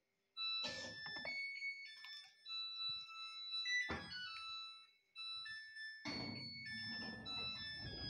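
Samsung top-load washing machine playing its end-of-cycle melody, a tune of plain electronic beep tones that signals the wash programme has finished. A few dull knocks are heard, and handling noise comes in near the end.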